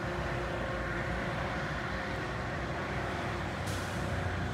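Steady outdoor background rumble, like road traffic or an idling vehicle, with a faint hum that fades about halfway through and a short hiss near the end.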